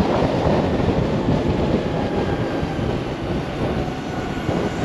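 Steady rush of wind and road noise while riding a LiveWire electric motorcycle.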